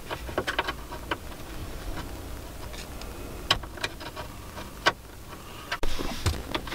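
Scattered light clicks and taps, a few of them sharper, from hands working at plastic dashboard trim and fixings, over a low steady hum in a car cabin.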